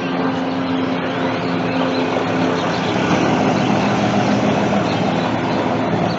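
A motor vehicle's engine running close by, a steady low hum over street noise.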